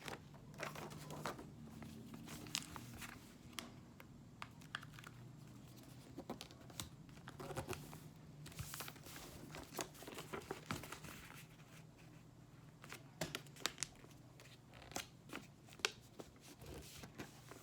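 A sheet of white computer paper being folded by hand: soft rustling and crinkling with scattered short ticks as the paper is handled and creased.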